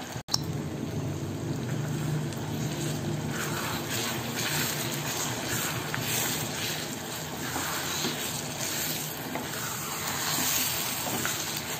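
Ground gongura (sorrel leaf) paste frying in bubbling oil in a stainless steel pan, sizzling steadily, with a wooden spatula stirring it through. It is being sautéed until the oil separates. The sound cuts out very briefly just after the start.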